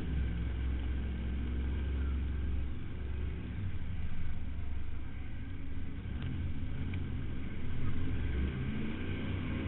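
2004 Ford Crown Victoria's 4.6-litre V8 running under race load, heard from inside the stripped cabin: a steady low drone whose pitch rises and falls with the throttle.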